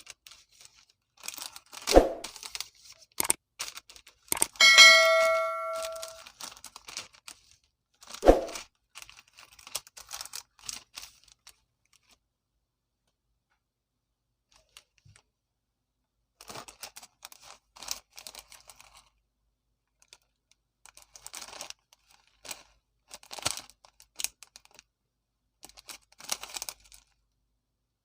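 Plastic snack packaging crinkling and rustling as it is handled and torn, with two dull knocks and, about five seconds in, a metallic ding that rings for over a second. The rustling stops for a few seconds in the middle, then comes back in short bursts.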